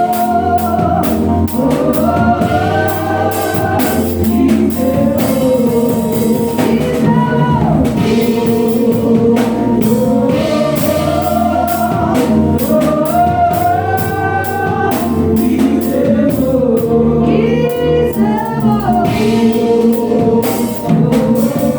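Gospel worship song sung by a group of voices over a band with drums, the melody rising and falling in long sung phrases.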